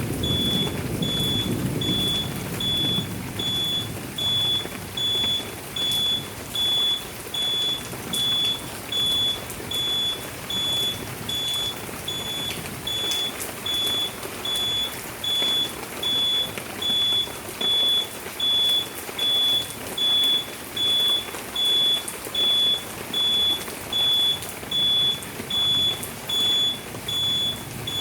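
Electric scooter's electronic beeper sounding short, high, even beeps, about three every two seconds, over a low rushing noise that fades after the first few seconds.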